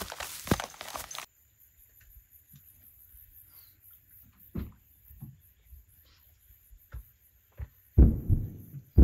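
Footsteps swishing and thudding through long grass, cut off sharply a second in. A quiet stretch follows with a few faint knocks, then near the end loud low rumbling thumps.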